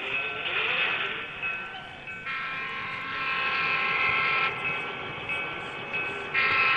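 A multi-note train horn sounding in long held blasts. A fuller, louder chord comes in about two seconds in and lasts about two seconds, and sounds again near the end.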